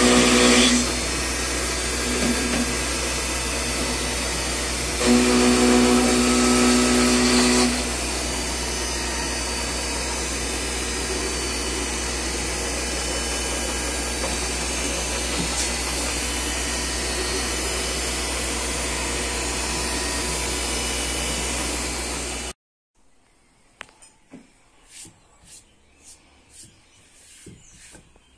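CNC milling spindle running an end mill through a wooden pattern block, a steady machining noise with a low hum. It grows louder with a whining tone for a couple of seconds about five seconds in, as the cutter bites harder. It cuts off abruptly about 22 seconds in, leaving quiet room sound with a few faint clicks.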